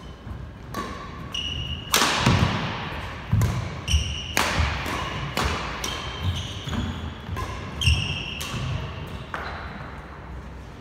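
Badminton rally: a string of sharp racket strikes on the shuttlecock, roughly one every half second to second, with sneakers squeaking and feet thudding on the wooden court floor. The hits die away near the end.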